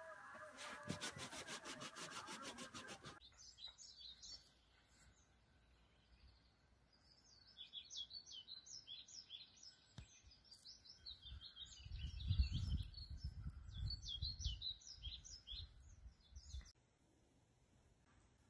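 A dachshund nibbling, rapid clicks about eight a second for the first few seconds. Then many short bird chirps, with a louder low rumble in the middle, until near silence in the last couple of seconds.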